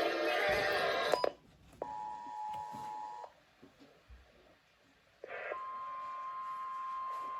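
Music cuts off with a click. A brief Emergency Alert System two-tone attention signal sounds for about a second and a half. After a short pause, a steady single-pitch NOAA Weather Radio alert tone starts and holds.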